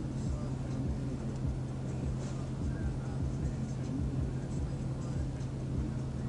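Steady low hum of a stationary police patrol car with its engine running, heard from inside the cabin.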